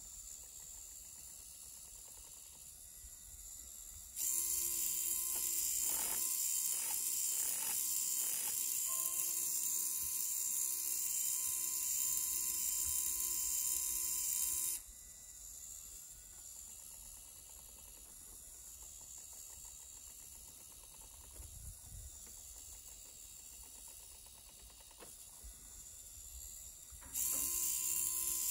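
Small hobby servo motor whirring as it turns plastic gears, with a few clicks early in its first run. It runs for about ten seconds and stops, then starts again near the end.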